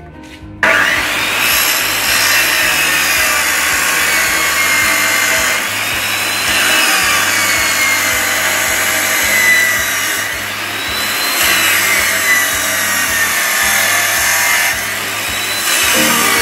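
Abrasive cut-off saw (chop saw) starting up about half a second in and cutting through steel bar. The disc's grinding whine sags in pitch and then recovers, about four times, as the disc is pressed into the metal and eased off.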